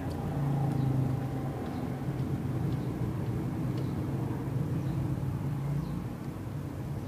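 A low engine hum that swells and fades, with a few faint metallic clicks.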